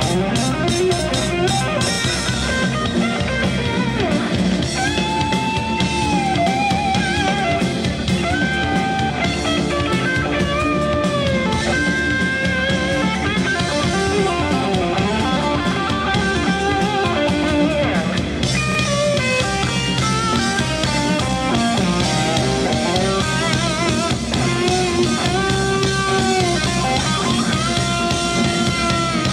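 A live rock band plays an instrumental passage: a lead line of long held notes that bend and waver, over drums, bass guitar and keyboards.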